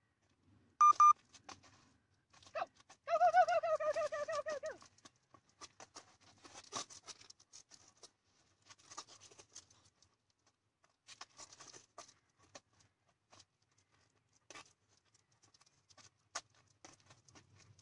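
A dog vocalising in excitement during a flirt-pole chase: a short sharp yip about a second in, then a long wavering whine lasting under two seconds. Scattered scuffs and clicks follow, from paws and the lure dragging on the asphalt.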